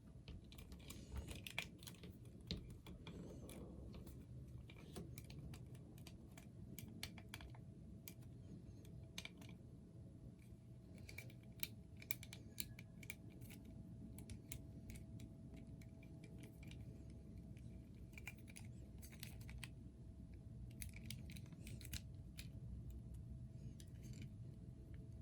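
Faint, irregular light clicks and taps of hard plastic pieces being handled, typical of posing a plastic action figure and swapping its parts.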